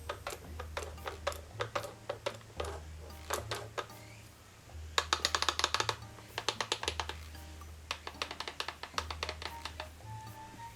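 Background music: a low bass line that changes note every second or two, over quick, crisp clicking percussion.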